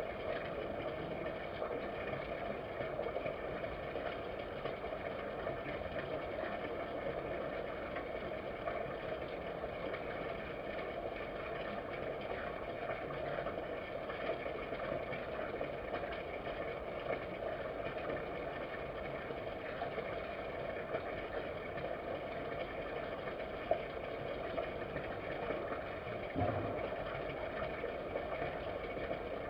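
Steady background hum and hiss with no clear event, broken near the end by one faint tick and a short low thump.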